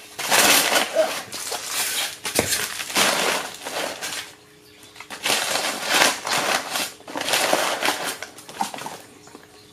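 Crumpled brown kraft packing paper rustling and crinkling as it is handled and pulled out of a cardboard box, in two long stretches with a short pause about four seconds in.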